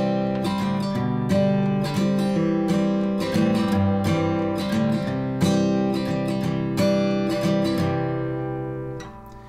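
Acoustic guitar strummed in chords with a hard corozo (tagua, plant-ivory) pick, a new strum every half second to a second. Near the end the last chord rings out and fades.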